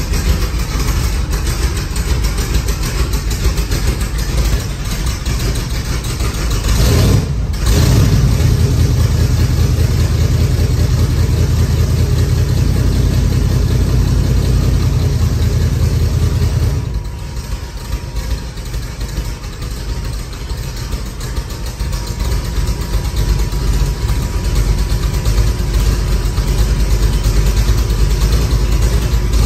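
Cobra roadster's V8 engine running after a cold start. Its speed rises about seven seconds in and holds there, then drops back around seventeen seconds and slowly builds again.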